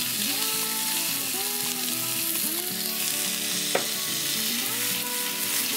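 Frozen ground beef patties sizzling on a hot flat stovetop griddle, a steady frying hiss, with one sharp click a little before four seconds in. Background music of held notes plays under it.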